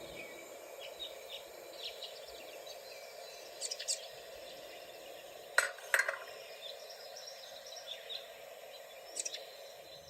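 Faint steady background hum with scattered short chirps and a few sharp clicks.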